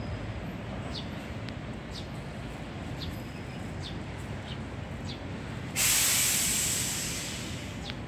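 Eurasian tree sparrows chirping now and then over a steady low hum of traffic. About six seconds in, a sudden loud hiss starts and fades out over about two seconds.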